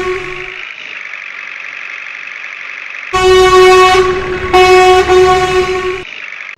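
Truck horn sounding in long, loud blasts: one ends about half a second in, and another starts about three seconds in and lasts about three seconds with a short break in the middle. A quieter steady hum fills the gaps.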